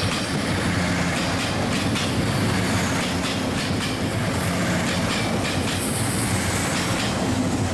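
Diesel railcar train passing close by on the rails: a steady loud running rumble with an engine hum and scattered clicks of the wheels over the track.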